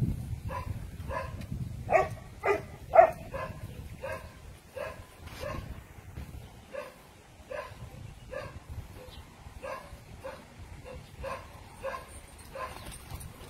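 Doberman barking over and over, about two short barks a second, loudest two to three seconds in.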